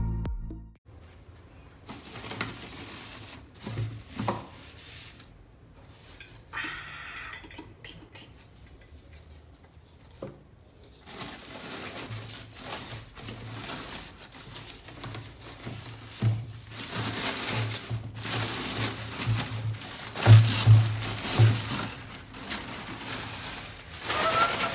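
Background music cuts off about a second in, followed by unboxing sounds: clicks, knocks and rustling as a new coffee machine and its packaging are handled, growing denser, with a few dull thumps, in the second half.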